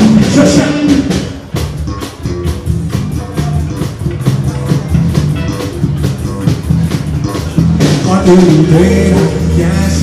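Live rock band playing with electric guitars and a drum kit. A singer's voice is heard in the first second and comes back near the end; in between is an instrumental stretch carried by steady drum hits.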